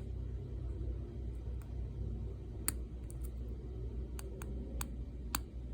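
Small sharp clicks of pin tumblers inside a Brinks 161 five-pin padlock as a lock pick lifts them under heavy tension: about ten clicks at irregular intervals over a low steady hum.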